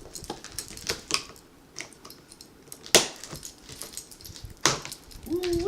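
A set of keys digging and scraping through plastic wrap and tape on a cardboard box, with irregular crinkles, scrapes and sharp snaps, the loudest about three seconds in.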